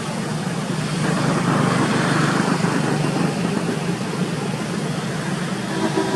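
A steady low hum over an even background hiss, a little louder for a couple of seconds after the start. Faint pitched tones come in near the end.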